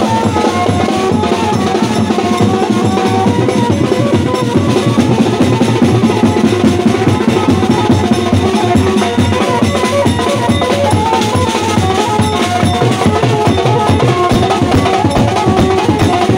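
Loud festival procession drumming, a fast continuous beat of heavy drum strokes, with a melody over it.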